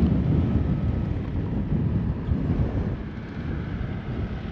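Wind buffeting the camera microphone: a low, irregular rumble that rises and falls in gusts.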